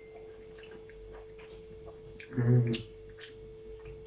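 Quiet eating sounds: small clicks and smacks of chewing, over a faint steady hum. About two and a half seconds in there is one short, low murmur of a voice.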